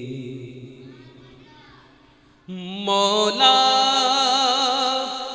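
A man's voice singing an Urdu naat into a microphone, with no instruments: a held, wavering note fades away with echo, then about halfway in he comes in with a long, loud note that steps up in pitch twice and sways as it is held.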